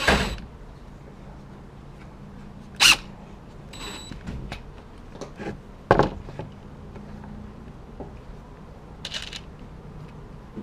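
A cordless drill stops at the start as a screw finishes seating through a lashing-strap buckle into a wooden board. Then come a few sharp clatters and knocks of tool and parts handling, including a short blip of the drill's motor about four seconds in and a loud knock about six seconds in as the drill is set down on the table.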